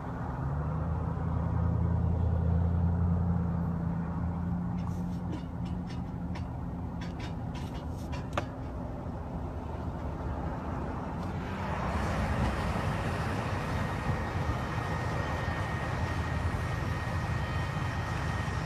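Low, steady engine hum of vehicles in slow traffic, heard from inside a car, with a few faint clicks in the middle. A little over ten seconds in, a broader rush of tyre and road noise rises as the car gets moving.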